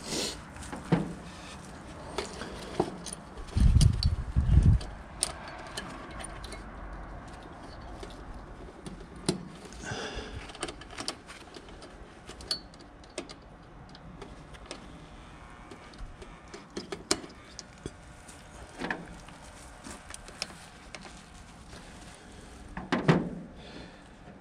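Scattered clicks, knocks and light metallic clatter of hand tools and parts being handled during contactor replacement work on a heat pump, with two loud low thumps about four seconds in.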